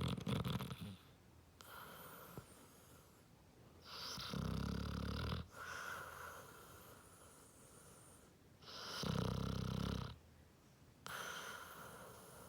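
Basset hound snoring loudly in its sleep. Three big rasping snores come about four and a half seconds apart, with softer breathing sounds between them.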